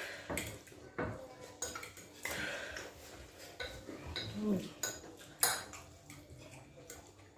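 Cutlery clinking and scraping against plates and bowls while food is eaten: a string of irregular sharp clinks.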